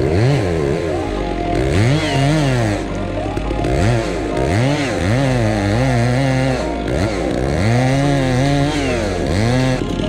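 Chainsaw's two-stroke engine revving up and down again and again, its pitch climbing and dropping in quick repeated surges.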